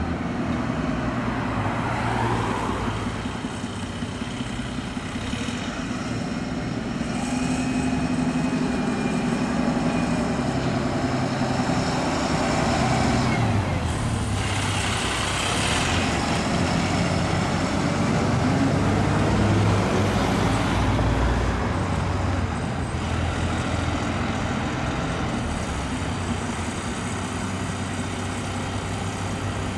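Turntable ladder fire engine's diesel engine running as it drives slowly without sirens, with a short hiss about halfway through.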